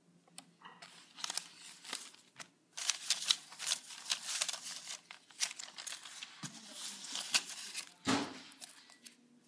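Irregular crinkling and rustling made of many small crackles, starting about a second in and going on until near the end, with one heavier scrape about eight seconds in.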